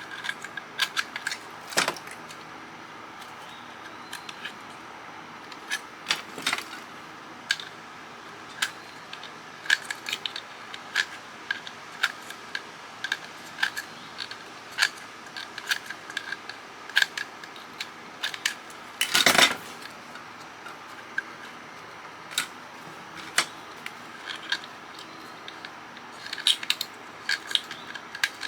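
Irregular sharp clicks and clinks of a small screwdriver and loose metal and plastic parts as a CB radio is taken apart by hand, with one longer rattle about two-thirds of the way through. A steady faint hum runs underneath.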